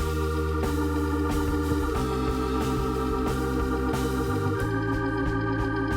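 Background music played on an electronic organ-style keyboard: sustained chords over a bass line, changing chord about every two seconds.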